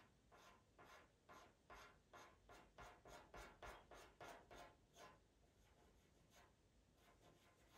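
Pastel pencil scratching in short, quick strokes on Pastelmat-type sanded paper, about three strokes a second, fading to a few faint strokes after about five seconds.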